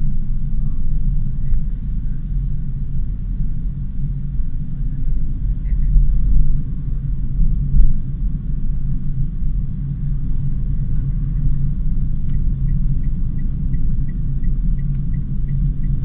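Steady low rumble of a Daihatsu Sigra on the move, road and engine noise together. About three-quarters of the way in, a light regular ticking joins, about three ticks a second.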